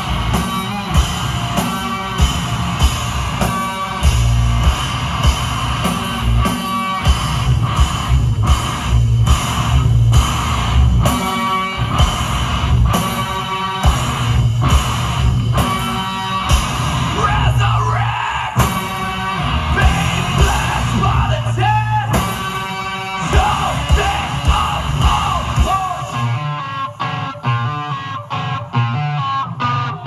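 Live heavy rock from a guitar-and-drums duo: loud distorted electric guitar and pounding drum kit with yelled vocals. About four seconds before the end the drums and low end drop out, leaving the guitar playing alone.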